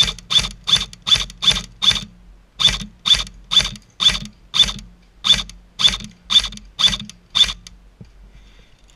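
Airsoft electric rifle (Matrix M16 AEG) firing single shots in quick succession, about two to three a second, each a sharp mechanical clack of the gearbox cycling. There is a brief pause about two seconds in, and the firing stops near the end.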